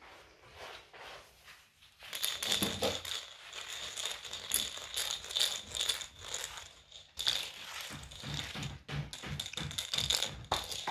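Rattling with a jingling ring, starting about two seconds in, breaking off briefly after about seven seconds, then coming back as a slower rhythmic rattle.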